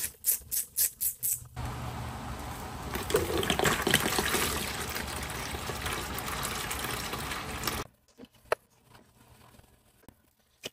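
Coolant from a 2019 Suzuki GSX-R750 draining out in a steady pouring rush, after a quick run of clicks at the start. The pour cuts off suddenly about three-quarters of the way through, leaving only a few faint clicks.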